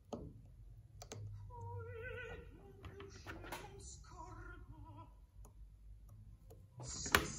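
Quiet operatic singing, a voice holding wavering notes with vibrato, under a few sharp clicks of handling at the tying bench, the loudest click near the end.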